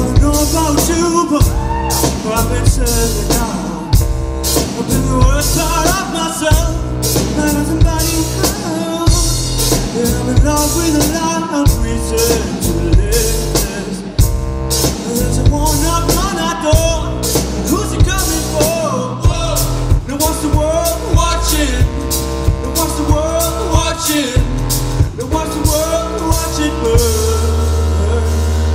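Live band music with a steady drum beat, keyboards and bass, and a group of voices singing over it.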